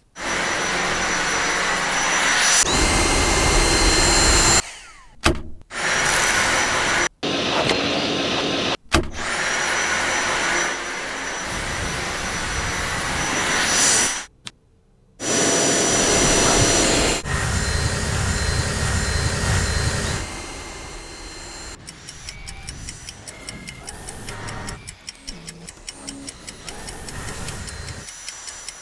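Cordless stick vacuum (Dyson V8 Animal) motor running with a high whine over a hiss, in a series of stretches cut off by sudden breaks, each spinning back up with a rising whine. After about two thirds of the way through it drops quieter, with a fast run of light clicks.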